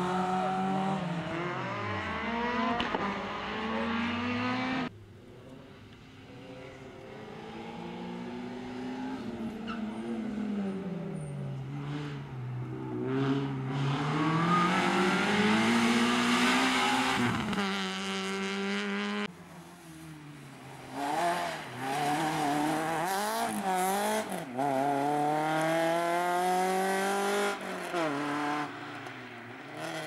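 Small rally hatchbacks, Peugeot 106s among them, racing through a slalom with their engines revved hard, the pitch rising and falling again and again as they accelerate, lift off and rev up between the cones. The sound changes abruptly twice as one car's run is cut to the next.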